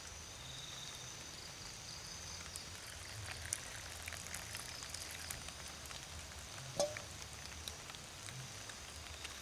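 Night insects such as crickets trilling steadily, with light scattered crackling and ticking throughout. A single short, louder knock comes about seven seconds in.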